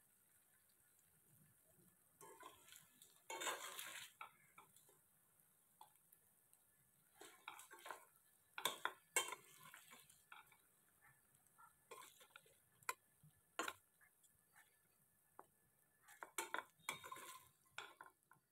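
A metal spatula scraping and clinking against a stainless steel frying pan as fried chicken pieces are scooped out. The sound comes in scattered bursts of scraping with sharp clinks between them.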